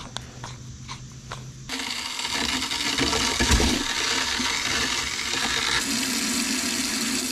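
An RV kitchen faucet running a full stream of water into a plastic sink basin, starting abruptly about two seconds in and running steadily. Before it, a few light clicks of a brass garden-hose fitting being handled.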